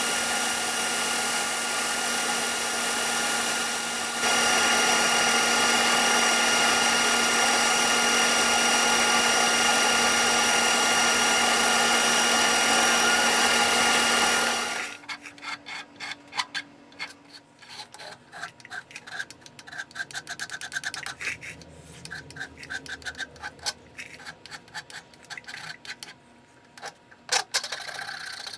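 A power tool runs steadily with a constant whine, getting louder about four seconds in, and shuts off about halfway through. Rapid, irregular hand rubbing and scraping strokes follow, typical of filing or sanding by hand.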